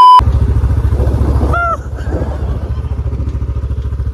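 A short, very loud test-tone beep, then wind rumbling hard on the microphone of a moving motorcycle with the engine running underneath. A brief high call sounds about one and a half seconds in.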